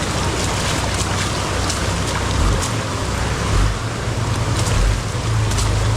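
Motorcycle riding on a wet road in the rain: a steady low engine hum under wind rush and tyre hiss, with faint scattered spatters.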